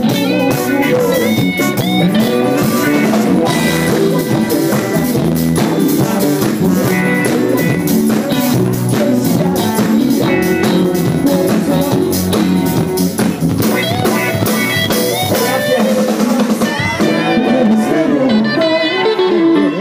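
Live band playing a blues-rock groove at a sound check, with drum kit and electric guitar up front.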